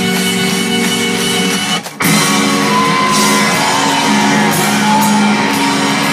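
Live rock band playing loud, distorted electric guitars over held chords. The band stops dead for a split second about two seconds in, then comes straight back in.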